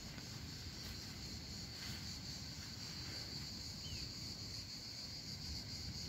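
Steady, high-pitched chorus of insects buzzing, with a single short chirp about four seconds in.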